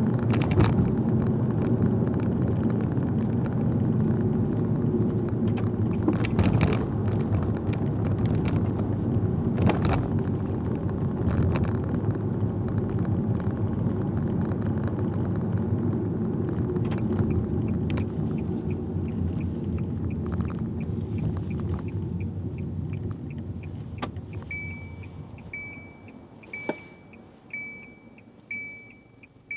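Car cabin noise while driving, engine and tyre rumble, dying away as the car slows and stops. Near the end a short high electronic beep repeats about once a second, like a dashboard warning chime, with a few light clicks among the beeps.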